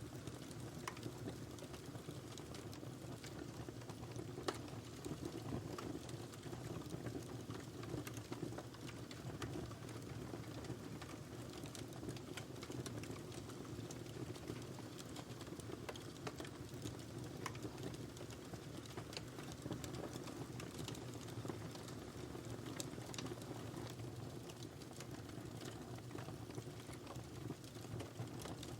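Fire burning in a fireplace: a steady low rush with frequent small, sharp crackles and pops at irregular intervals.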